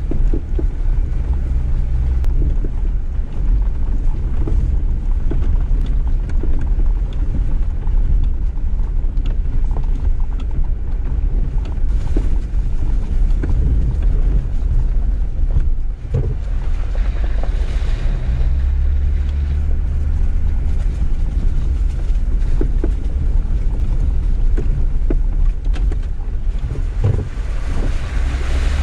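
Jeep Gladiator Rubicon driving slowly over a rough dirt road: a steady low rumble of engine and tyres, with frequent small knocks and rattles from the rough surface. The rumble swells for a few seconds past the middle.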